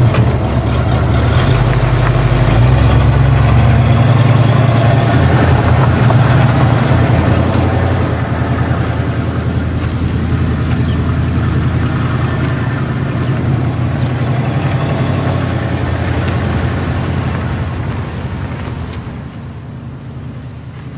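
Pickup truck engine running as the truck pulls away, a steady low drone that slowly fades and drops off near the end as it moves into the distance.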